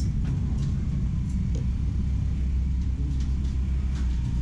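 Steady low rumble of passing road traffic, with a few light clinks of a ceramic soup spoon against a porcelain bowl.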